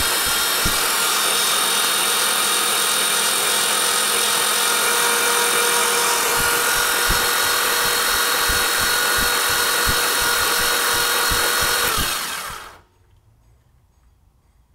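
GM LS V8 engine cranked over by its starter motor without firing, with the valve cover off: a steady starter whine over low, uneven pulses, cut off suddenly about twelve and a half seconds in. The engine is being cranked to build oil pressure, which pumps up a partially collapsed lifter.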